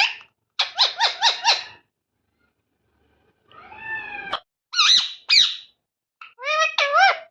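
A pet parrot making a series of high-pitched squawks and squeaks. A quick run of about five chirps comes first, then a longer call, two sharp squeaks and a wavering call near the end.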